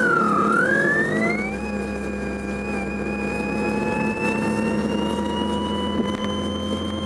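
Renault 21 Turbo D's diesel running, with a high electronic whine from the car radio that follows engine speed: the 'space shuttle' effect. The whine sags briefly at first, sweeps back up within about a second, then keeps rising slowly while the engine drones under it.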